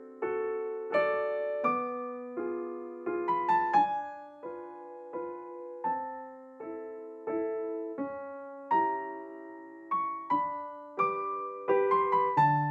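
Background music: a gentle piano piece of chords struck at a steady, unhurried pace, each one ringing and fading before the next.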